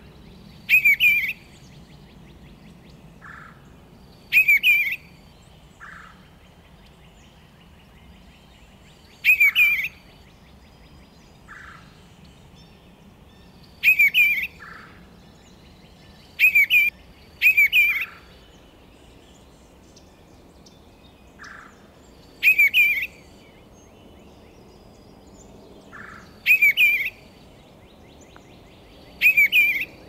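Male eastern bluebird singing: short warbled phrases, about nine in all, each under a second long and repeated every few seconds, two of them close together a little past halfway.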